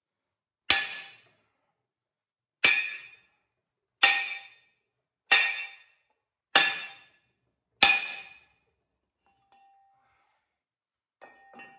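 Six heavy sledgehammer blows on a length of steel box iron held against a seized ram in a Steyr CVT tractor's front axle, driving the ram across to get it out. Each blow is a sharp metallic clang that rings briefly. They come about one to two seconds apart.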